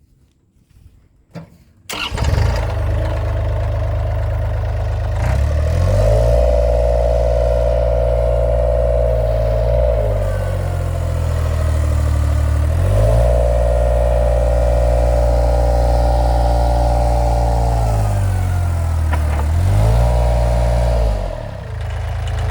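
Westrac HTS1300 mini track loader's engine, quiet at first and then coming in abruptly about two seconds in, running loud while lifting a 1,600-pound load. Its pitch dips and recovers several times, with a higher whine over it during the lifts.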